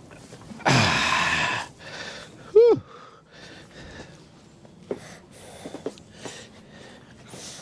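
A man's loud, strained exhale about a second in, then a short grunt, the sounds of effort while hauling a heavy portable generator; a few faint knocks follow.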